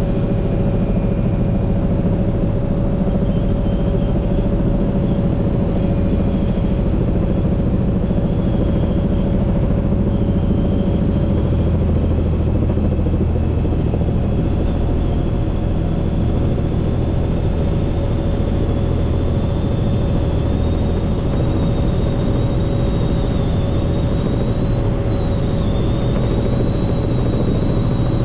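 Helicopter in flight: steady loud engine and rotor noise with a constant whine.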